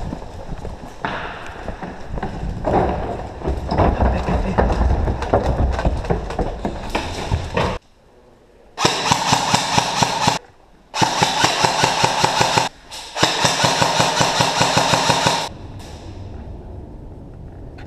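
Running footsteps with gear and the gun rattling, then an airsoft rifle firing three long full-auto bursts of rapid, evenly spaced shots, starting about nine seconds in and each cutting off sharply.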